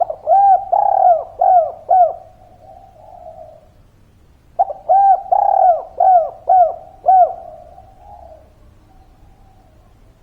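Spotted dove (derkuku, tekukur) cooing. It gives two phrases of rising-and-falling coo notes, one at the start and another about four and a half seconds in, with softer low cooing between.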